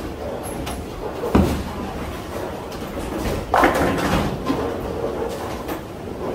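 Ten-pin bowling ball thudding onto the lane about a second after release, rolling, then crashing into the pins about two seconds later, over the steady rumble of balls and machinery in a bowling alley.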